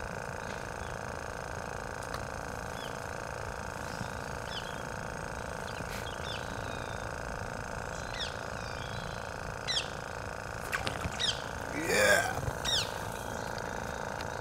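Small birds chirping along the riverbank: short, high calls scattered through, more frequent in the second half, over a steady low hum. A louder rising sound comes near the end.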